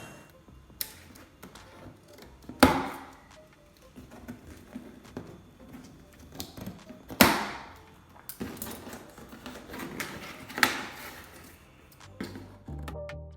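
Three loud, sharp hits, each ringing out briefly, with many small clicks and knocks scattered between them.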